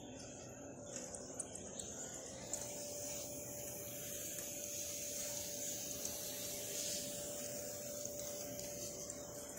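Canister vacuum cleaners running steadily on carpet: a high hiss with a steady hum that comes in about two and a half seconds in, and a few light clicks in the first two seconds.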